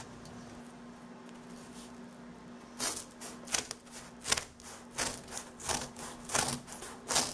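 Scissors cutting through corrugated cardboard: a run of sharp snips starting about three seconds in, roughly one every two-thirds of a second, after a quiet stretch with a faint steady hum.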